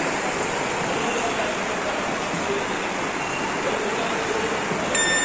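Steady rushing background noise of a metro station concourse, heard while walking through it. Near the end a short electronic beep sounds.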